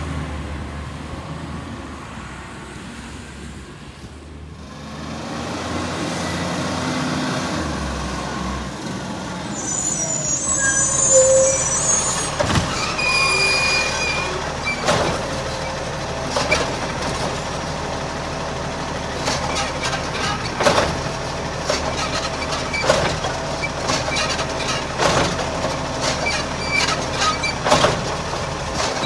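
A side-loader garbage truck's diesel engine runs, and an air-brake hiss comes about ten seconds in. Then the truck's automated arm lifts a green-waste wheelie bin and tips it into the hopper, with repeated knocks and clunks as the bin is emptied and shaken.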